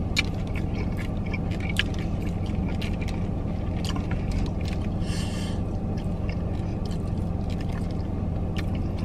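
Shrimp shells being peeled and pulled apart by hand over a plastic bag, with scattered small clicks and a brief crackle about five seconds in. A steady low hum from the car's running engine lies underneath.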